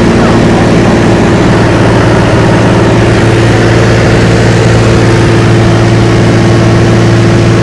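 Loud, steady engine drone of a vehicle, holding one constant pitch throughout.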